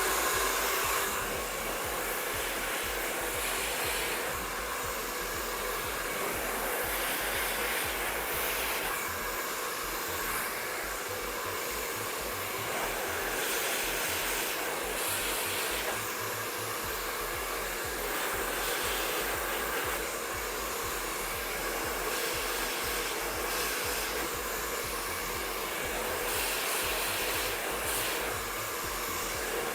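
An MQ Pro Digital 2600 W professional hair dryer switches on and blows steadily, with small swells in the air noise as it is worked over the hair during a blow-dry.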